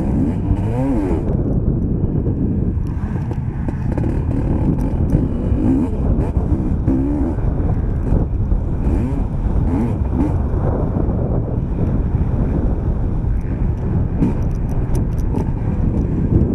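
Motocross bike engine heard on board at race pace, its revs climbing and dropping again and again through gear changes, throttle and braking.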